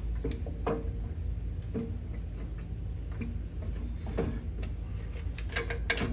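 Scattered light metal clicks and knocks of a Nylock nut and bolt being fitted by hand, a cluster of them near the end, over a low steady hum.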